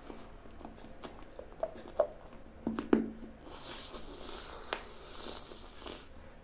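Close mouth sounds of eating a small yellow fruit: wet lip smacks and chewing clicks, the loudest near three seconds in, with soft breathy sucking in the second half.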